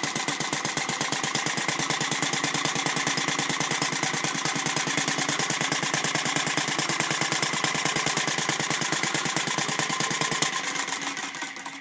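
Home-machined single-cylinder vertical internal-combustion model engine (Brian Rupnow design) running steadily at about 1100 RPM, its rapid firing strokes even. About ten and a half seconds in it is switched off and the firing dies away as it coasts down.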